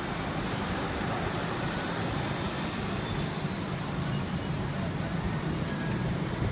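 Steady city street traffic at a busy intersection: a continuous low engine rumble mixed with the noise of passing scooters and vehicles.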